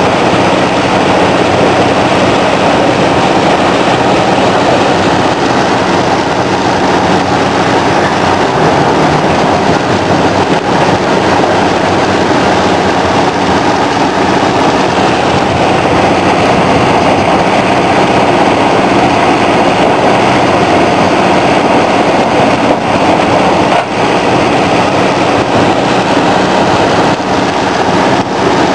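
Extec tracked mobile crusher running under load, crushing rock fed from an excavator and discharging stone off its conveyor: a loud, steady mechanical din of diesel engine and crushing.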